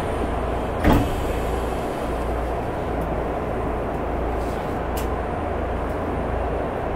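Inside a subway car: a steady low rumble and hiss, with a single sharp knock about a second in and a faint click near five seconds.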